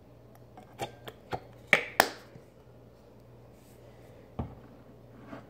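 A plastic Pantene shampoo bottle being squeezed and handled over a steel bowl: a few short sharp clicks in the first two seconds, the loudest about two seconds in. A dull knock follows about four and a half seconds in, as the bottle is set down on the table.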